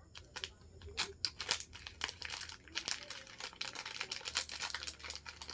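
Plastic packaging crinkling as it is handled and pulled open: a dense run of crackles starting about a second in.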